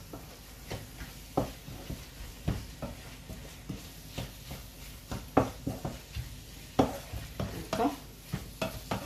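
Spatula scraping and knocking irregularly against a non-stick frying pan as chicken breast pieces and a vegetable filling are stirred, with frying going on underneath.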